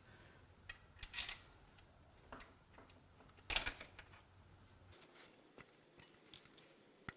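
Scattered light metal clinks and taps as the S54 engine's connecting rod bearing parts and hand tools are handled during bearing removal, with two louder clinks about a second in and about three and a half seconds in.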